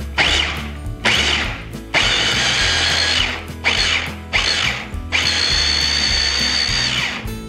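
Electric mini chopper pulsed in six bursts, blending mango chunks and walnuts into a smooth purée; the last burst runs for about two seconds.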